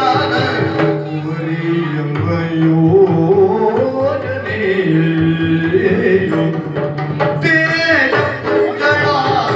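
Yakshagana music: a singer's voice over a steady drone, with drum strokes.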